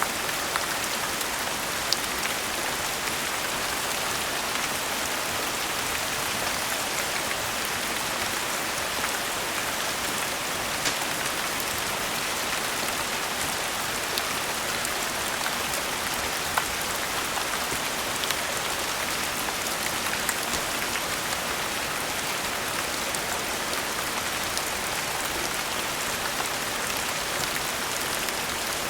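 Steady rain falling, with occasional sharp ticks scattered through it.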